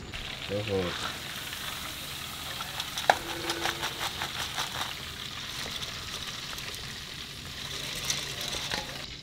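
Battered alligator meat deep-frying in hot oil in a propane fryer, a steady sizzle. About three seconds in comes a sharp metal clank, then a run of crackles as the wire basket is lifted out of the oil.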